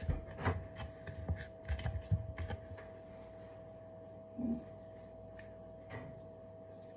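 Metal spoon scraping and knocking against a plastic tub of cookie dough: a run of soft clicks and taps in the first two seconds or so, then quieter handling of the dough. A faint steady hum lies underneath.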